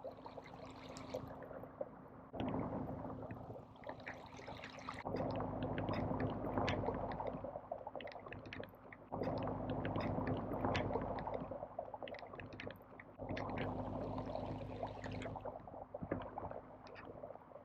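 Lake water washing and lapping against the island's shore in repeated surges every few seconds, with small splashes and a faint steady hum underneath.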